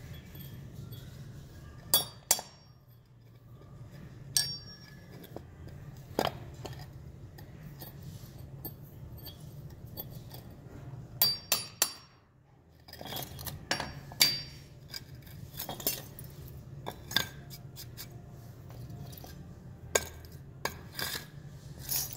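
Hammer striking a steel chisel to chip plaster investment off a cast aluminium piece: sharp metallic taps with a brief high ring, irregular and often in quick pairs or clusters, over a steady low hum.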